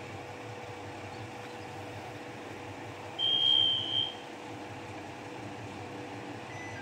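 MRT300 diesel railcar idling steadily at a station stop. A little after three seconds in, a single high-pitched beep sounds for about a second, much louder than the idle.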